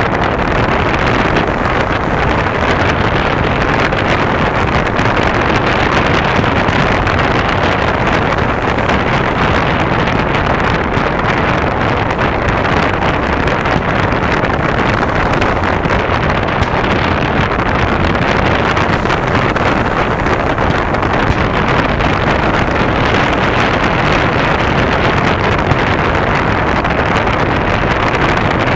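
Steady rushing noise of wind and surf, even in level throughout, with no firework bursts standing out.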